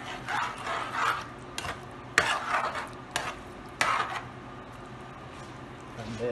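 A spoon stirring thick chicken stew in a metal pot: a few irregular scraping strokes with light clinks against the pot, stopping about two-thirds of the way through.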